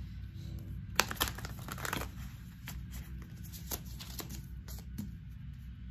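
A deck of oracle cards being shuffled by hand: a quick run of card flicks starting about a second in, then scattered single card clicks.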